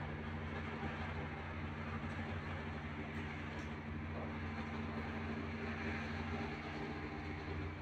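Steady low machine hum with a haze of noise above it.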